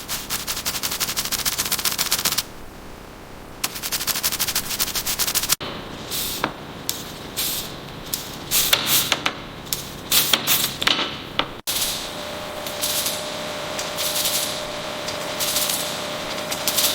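Workshop tool noise in cut-together takes: a fast, even mechanical rattle like a power tool on a bolt, heard twice with a short break, then a run of irregular short bursts and clatter.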